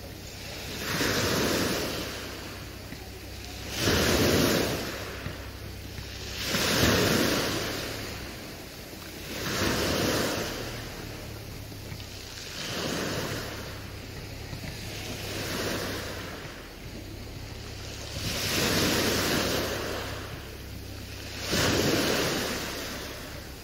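Slow, even swells of rushing noise, one about every three seconds, over a low steady hum.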